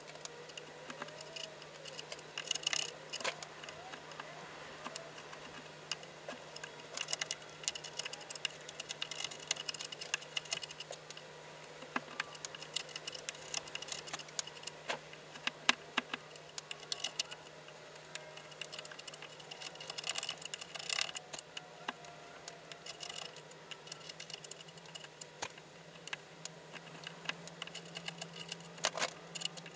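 Bench chisel paring the sockets of a wooden dovetail pin board by hand: irregular scraping and slicing with small clicks, taking fine shavings to make the joint fit better. A steady low hum runs underneath.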